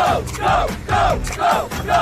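High-pitched cartoon-like voices chanting one short syllable over and over, about two to three times a second, over background music with a low bass.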